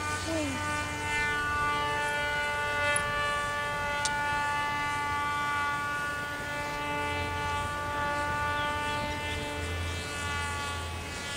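UB-130 radio-controlled model airplane's motor and propeller whining in flight at a steady pitch, after a brief drop in pitch at the start. A low wind rumble on the microphone sits underneath.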